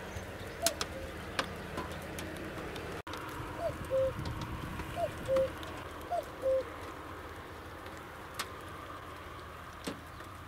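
Common cuckoo calling its two-note "cu-ckoo", a higher note falling to a lower one. It calls four times: once near the start, then three times in quick succession about a second apart.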